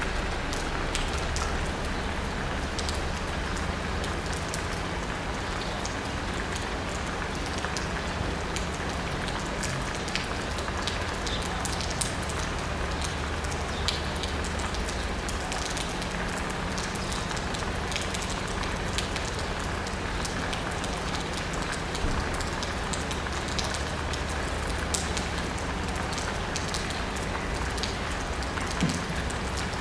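Steady city rain pattering on asphalt and rooftops, with many separate drops ticking close by. A low steady hum sits beneath it.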